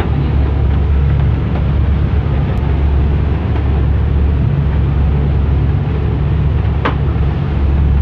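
Passenger boat's engine droning steadily under the rush of its churning wake and wind across the open deck, on a choppy sea. A single sharp knock sounds about seven seconds in.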